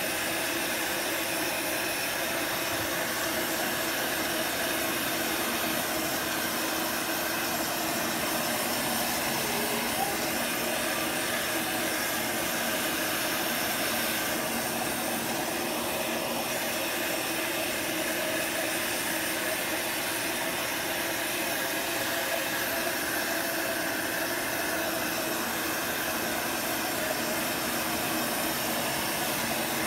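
Industrial heat gun running steadily, its fan giving a continuous rushing hiss with faint steady tones from the motor, as it melts and fuses a layer of beeswax encaustic.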